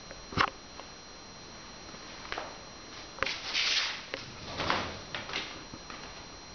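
Scattered light knocks, clicks and short rustles of footsteps and kittens moving about on wooden stairs, with the longest rustle a little past the middle.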